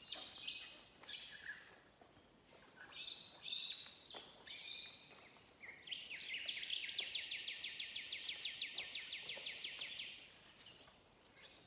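A bird calling: a few short chirps, then a rapid trill of about nine notes a second that lasts about four seconds, with a few faint clicks of barbed wire being handled.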